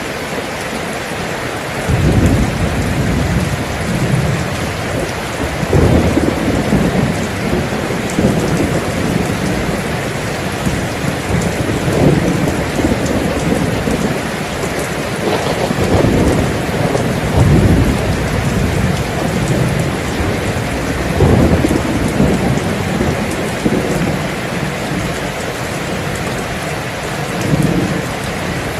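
Steady rain falling, with low rolls of thunder rumbling again and again from about two seconds in.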